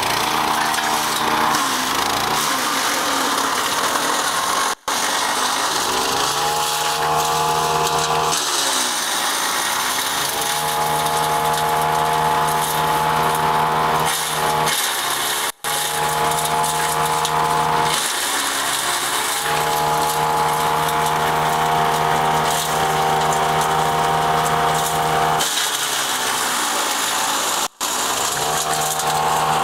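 Wood chipper's engine running loudly. Its pitch sags and climbs back several times as it labours on loads of olive branches being shredded.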